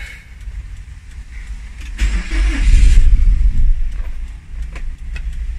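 Nissan X-Trail engine being started but not catching and staying running, with a low rumble and a loud, rough burst about two seconds in that lasts about a second. This is a hard-starting, no-throttle-response condition that the mechanic traces to a faulty accelerator pedal position sensor.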